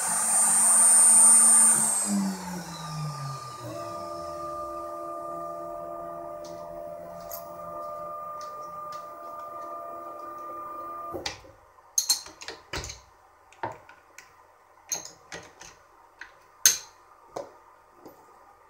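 The rotary-tool spindle of a small desktop CNC mill switching off and spinning down, its whine falling in pitch over about three seconds. A steady electrical hum follows and cuts off about eleven seconds in. After that come a series of sharp metallic clicks and taps as a wrench works the tool's collet.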